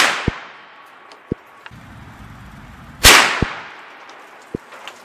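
A .350 Legend bolt-action rifle fires a single shot about three seconds in, loaded with Winchester Super X 180-grain Power-Point. At the start, the previous shot is still ringing away. Each shot is followed by a short low thud a fraction of a second later.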